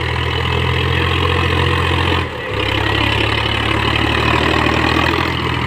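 Sonalika 50 HP Tiger tractor's diesel engine running steadily under load while it pulls a rotavator through the soil. The engine note briefly dips about two seconds in, then carries on at the same level.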